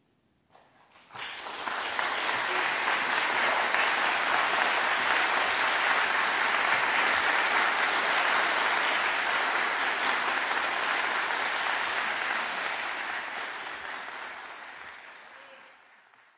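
Audience applauding. A few scattered claps come about half a second in, swell quickly into full applause, and fade out near the end.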